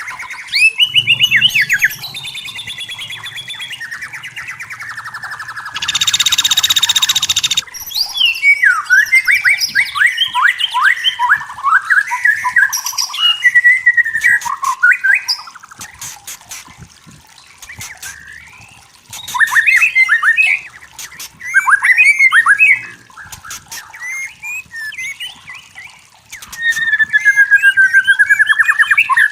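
White-rumped shama singing: varied phrases of clear whistles, rapid trills and slurred notes, coming in loud bursts with short pauses between them. About six seconds in there is a harsh, buzzy note lasting about a second and a half.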